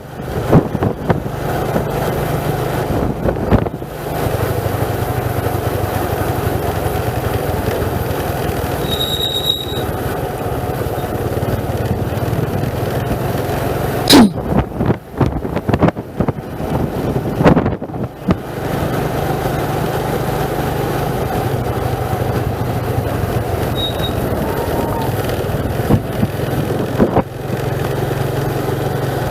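A vehicle engine running steadily while travelling. A little past the middle, the engine note drops away for a few seconds amid several sharp knocks, then picks up again.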